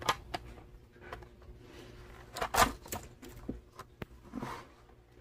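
Light plastic clicks and knocks of Lego pieces being handled as a Lego outboard motor is fitted to a Lego boat, irregular, with a couple of louder clicks about halfway through.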